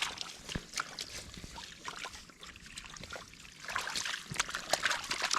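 Shallow water splashing and trickling in irregular small bursts, sparser about halfway through and busier again near the end.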